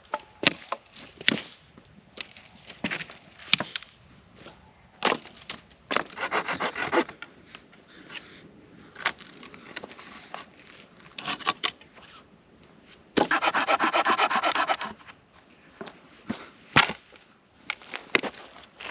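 Firewood being handled: sharp knocks and cracks of wooden sticks, with two longer rasping scrapes about six and thirteen seconds in.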